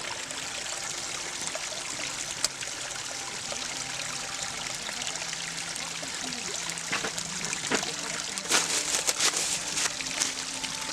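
Running water trickling steadily, with a few sharp clicks or knocks near the end.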